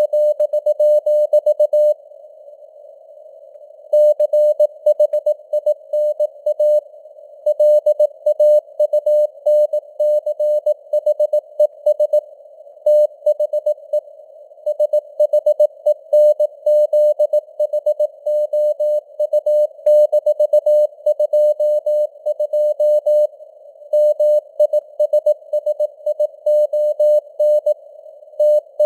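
Morse code (CW) sent as a single tone of about 600 Hz, keyed in dots and dashes at 18 words per minute over a narrow band of simulated radio receiver hiss. There is a pause of about two seconds, starting two seconds in.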